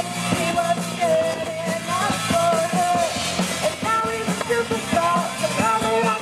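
Live rock band playing: a woman singing over electric guitar, bass guitar and a Tama drum kit.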